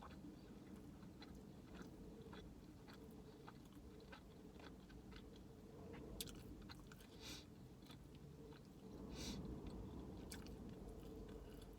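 A person chewing and biting food, faint with many small wet clicks and crunches, and a few louder bites past the middle.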